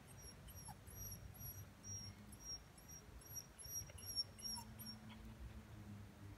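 A bird's high, thin call note repeated evenly, about two or three times a second, faint, stopping about five seconds in, over a low, soft background rumble.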